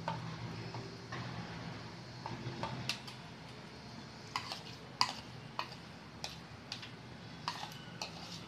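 A metal spoon scraping and tapping a plastic mixing bowl while emptying spice marinade onto chicken: a string of sharp clicks, sparse at first and about a dozen in the second half, the loudest about halfway through. A low steady hum runs under the first couple of seconds.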